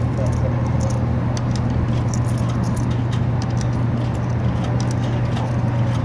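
Scattered light clicks and clinks of a transit ticket vending machine being fed money for a fare, over a steady low hum.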